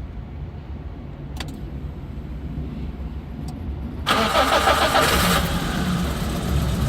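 Daihatsu 1.3 EFI 16-valve four-cylinder engine being cranked by the starter about four seconds in and catching after about a second and a half, then running on. It runs rough with a misfire on cylinder 4. A low rumble and two faint clicks come before it.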